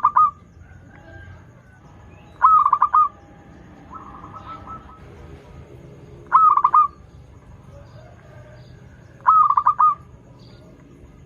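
Zebra dove (perkutut) cooing: loud phrases of quick staccato notes that repeat about every three seconds, one at the very start and three more after it, with a fainter phrase of the same notes between the second and third.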